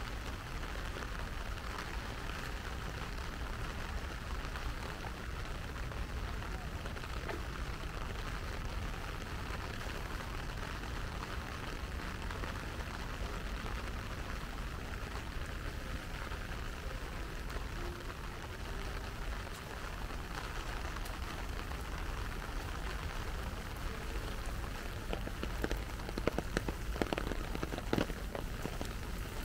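Steady rain falling, with a run of sharper drop impacts near the end.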